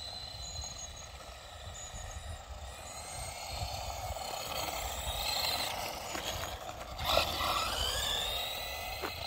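Electric motor of a 1:10-scale Carson Mega Duster RC monster truck whining as it drives fast on asphalt, its pitch rising and falling with the throttle. It gets louder from about seven seconds in, as the truck comes close.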